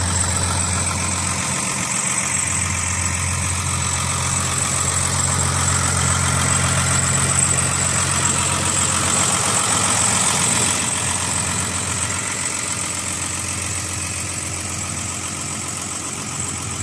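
Ford New Holland 8360 tractor's six-cylinder diesel engine idling steadily, with a steady high whine over the engine note. It grows a little softer near the end.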